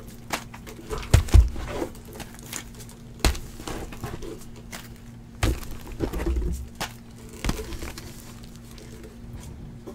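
Shrink-wrapped cardboard trading-card boxes being handled and stacked on a table, giving a series of knocks and soft thumps, about seven over several seconds.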